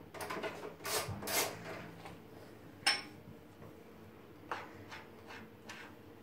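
Kitchen knife slicing sucuk on a plastic cutting board: scattered knocks and scrapes of the blade against the board, the sharpest click about three seconds in.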